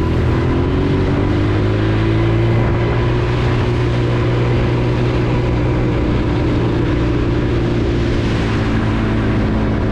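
Honda TRX90 quad's small single-cylinder four-stroke engine running under steady throttle while riding, its pitch climbing back up in the first second and then holding steady.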